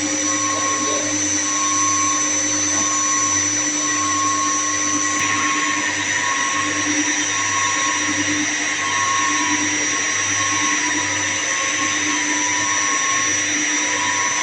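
Steady drone and whine of running electric-motor machinery, holding several constant tones under a hiss. About five seconds in, the hiss grows suddenly brighter and stays that way.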